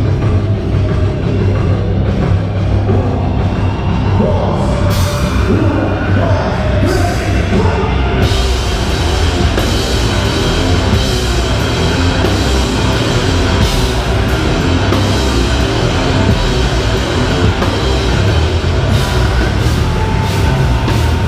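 A live heavy rock band playing an instrumental passage with no vocals: drum kit, bass and amplified guitars, loud and dense. Cymbal hits come in brighter from about five seconds in.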